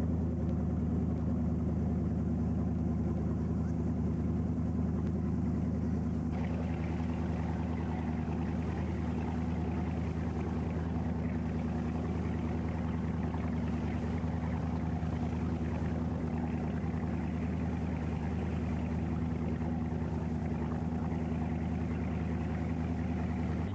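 Motorboat engine running steadily, a low drone heard from on board, with a rushing of water and wind that grows stronger about six seconds in.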